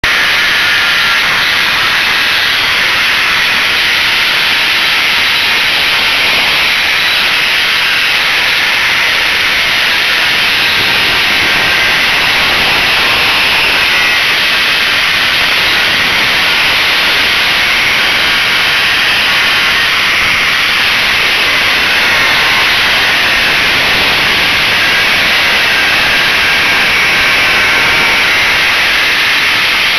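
A power tool driving a TCT rotary chisel mortar rake and raking out brick mortar joints, running loud and steady together with the hiss of its dust extraction.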